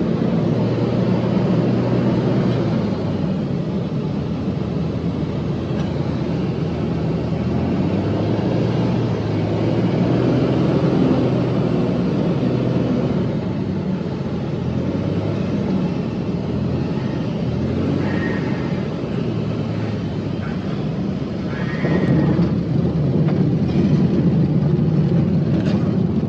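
Light single-engine plane's piston engine and propeller droning steadily, heard from inside the cabin, during the approach and landing. It gets louder near the end as the plane touches down and rolls on a dirt strip, with a couple of brief high tones just before.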